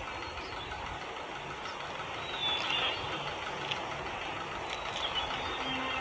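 Steady background hiss with a few faint, short high calls. A held low music note comes in near the end.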